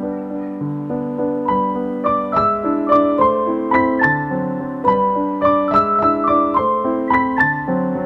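Background music: a gentle piano melody with sustained chords below, the notes coming quicker from about a second and a half in.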